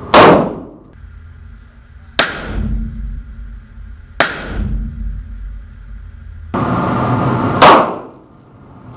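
Four gunshots fired into a bullet-resistant car door. Just after the start comes a loud 5.56 rifle shot. Two quieter shots follow about two seconds apart, heard from behind the door, and a loud handgun shot comes near the end.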